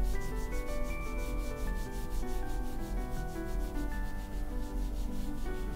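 A watercolour brush scrubbing quickly back and forth on watercolour paper, about five strokes a second, brushing paint over the white sparkle highlights in the painted water to cover them.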